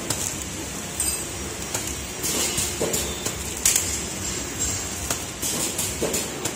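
Biscuit packing machine running: a steady mechanical hum, with sharp clicks and knocks coming at uneven intervals as wrapped biscuit rolls are carried along its conveyor.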